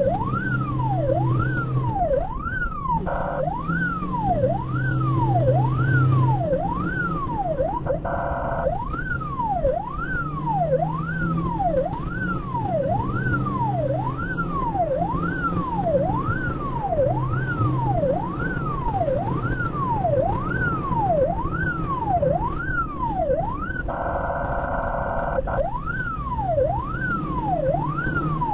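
Ambulance siren heard from inside the cab, sweeping up and down about once a second. It is broken by three short horn blasts, about 3 and 8 seconds in and a longer one near the end, over the vehicle's engine and road noise.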